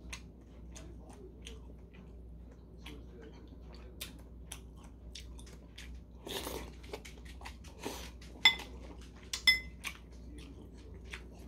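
Close-up eating sounds from a man eating shabu-shabu: many small wet mouth clicks of chewing, and a noisy slurping intake about six seconds in as meat and greens go into his mouth. Near the end, two ringing clinks of metal chopsticks on the bowl, a second apart, are the loudest sounds.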